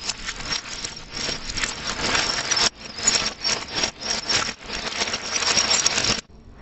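A crinkly plastic candy bag being handled, with the wrapped candies inside rustling. The crinkling runs on with a short break just under halfway and stops suddenly near the end.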